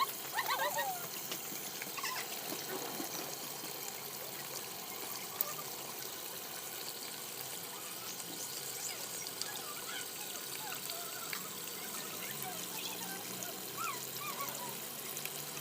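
Water trickling and splashing steadily from a small homemade fountain run by a mini electric pump.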